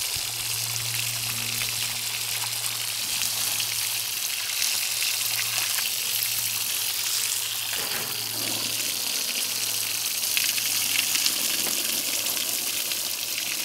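Garden hose jet spraying steadily onto a horse's wet coat and then a llama's fleece: a continuous hiss and splatter of water, shifting a little about eight seconds in as the stream moves.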